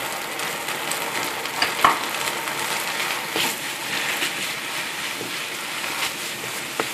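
Minced chicken filling sizzling in hot oil in a pan as it is stir-fried, with a spatula scraping across the pan a few times.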